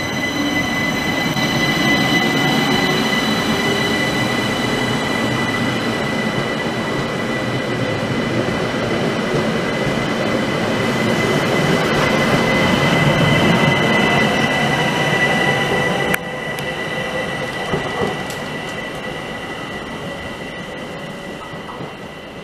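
An ÖBB class 4024 (Bombardier Talent) electric multiple unit pulls away and runs past close by, with wheel-on-rail rumble and a steady high whine. It grows louder as the cars pass, drops suddenly about two-thirds of the way through, then fades as the train draws away.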